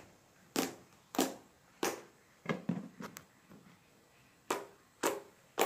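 Thick white slime squeezed and poked by hand, giving a string of sharp, wet pops and squelches, about eight of them at irregular intervals.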